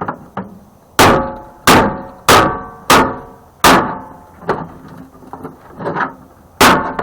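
Hammer striking the thin sheet-metal frame of a microwave beside a screw, about half a dozen hard ringing blows with a few lighter taps between, tearing the sheet metal away from the screw so it can be knocked free.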